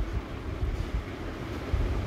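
A pot of seasoned curd-and-water liquid coming to a boil on a gas stove burner: a steady low rumble, getting louder near the end.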